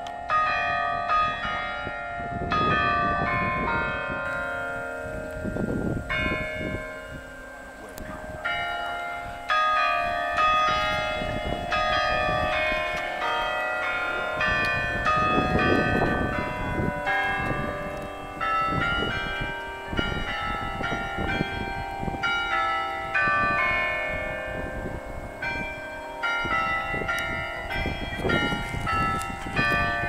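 Carillon bells of the Mahanay Bell Tower ringing a tune: many pitched bell strokes in quick succession, each ringing on under the next. A low rumbling noise swells up now and then underneath.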